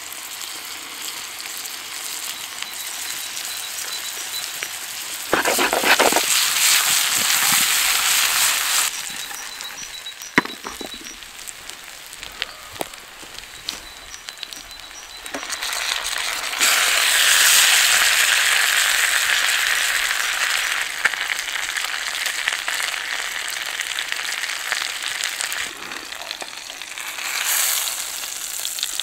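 Potatoes sizzling in hot fat in a frying pan over a wood fire. The sizzling is steady, with two louder spells of a few seconds each, about five seconds in and again about sixteen seconds in. There is a sharp clink around ten seconds.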